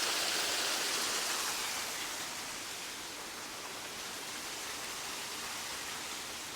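Waterfall rushing steadily, a bit louder for the first two seconds and then easing off slightly.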